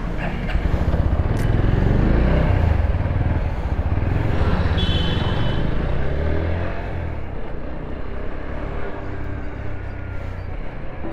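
Motorcycle engine pulling away from a standstill and accelerating, its pitch rising twice through the gears, then running steadily at lower revs. There is a brief high-pitched beep about five seconds in.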